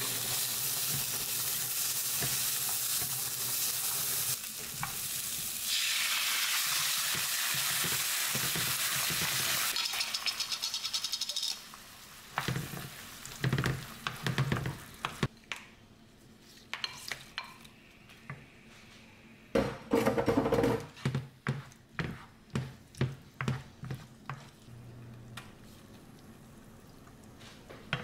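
Onion and garlic sizzling in oil in a frying pan for roughly the first eleven seconds. The sizzle then drops away into a wooden spoon stirring tomato sauce and spaghetti in the pan, with repeated knocks and scrapes against it.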